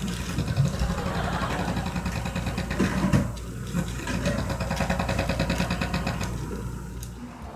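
A man snoring loudly in deep sleep, a harsh rattling snore likened to an excavator's engine, in two long breaths with a short break about three and a half seconds in, fading near the end.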